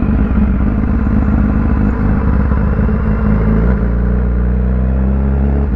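BMW S1000RR sport bike's inline-four engine running at steady revs through a loud exhaust while riding, with a slight change in engine note about two thirds of the way through.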